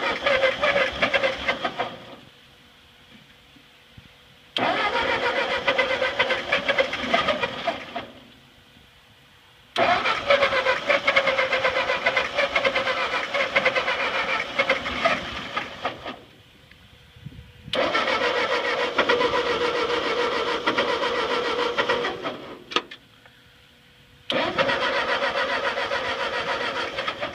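Ford 8N tractor's four-cylinder flathead engine being cranked by its starter in five bursts of two to six seconds, with the choke partly pulled. The engine does not catch; it has sat unused for years.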